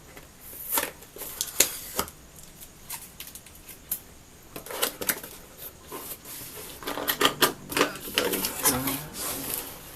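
Keyboard's cardboard box being opened and its packaging handled: scattered sharp clicks and taps, then denser rustling and crinkling in the second half.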